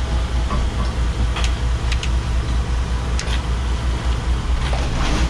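Fishing boat's engine running with a steady low rumble. A few short scrapes and clicks come from a halibut being cleaned by hand on the deck's cleaning table.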